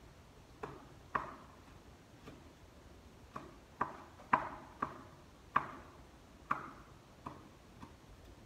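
Large kitchen knife chopping food, about a dozen sharp knocks at an uneven pace, roughly one every half second to second.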